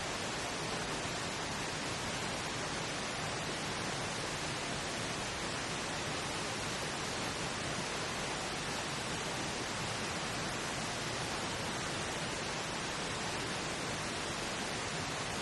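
Steady pink noise, an even hiss with no changes, masking a layered subliminal affirmation track.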